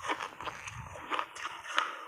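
Block ice coated in milk powder being chewed, crunching between the teeth with several sharp cracks, the loudest near the end.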